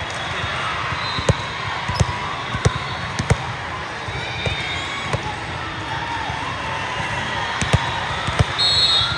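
Volleyballs being hit and bouncing in a gym: sharp smacks at irregular intervals over a steady murmur of spectators, with a short high tone near the end.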